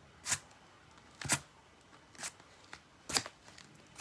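Paintbrush dabbing paint onto cardboard: four short brushing sounds, about one a second.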